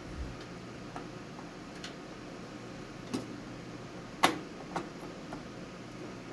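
A few separate small clicks and taps from handling a CPU and motherboard socket, the sharpest about four seconds in, over a steady low hum.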